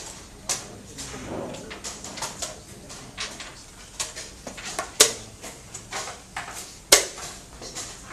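Sharp wooden clicks and taps of chess pieces being picked up and set down on a wooden board, with harder slaps of a chess clock being pressed during a fast game. The loudest clicks come about half a second, five and seven seconds in.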